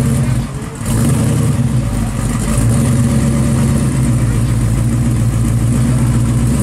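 Engine of a green 1969 Plymouth muscle car running at a loud, steady idle through its exhaust, with a brief drop in level about half a second in.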